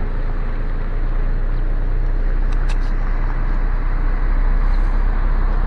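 Steady low rumble of a car driving slowly, heard from inside the cabin: engine and road noise, with a couple of faint, brief high ticks about two and a half seconds in.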